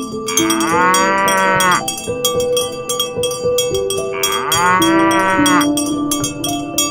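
A cow mooing twice, each moo about a second and a half long, rising and then falling in pitch, over background music with a steady ticking beat.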